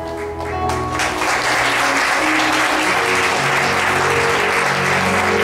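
A congregation applauding over worship-band music with sustained instrumental notes; the clapping breaks out about a second in.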